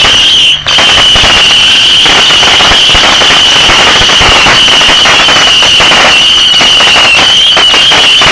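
Firework going off very close, giving a steady, piercing high whistle over dense crackling and popping. The sound dips briefly about half a second in, then keeps going at full volume.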